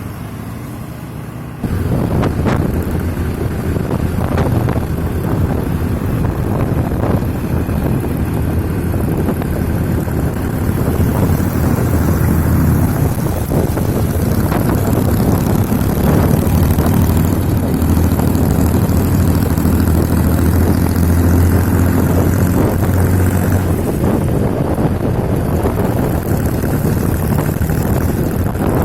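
Motorcycle fitted with a car engine running on the road at speed, a steady low engine rumble. The sound jumps suddenly louder about two seconds in and stays there.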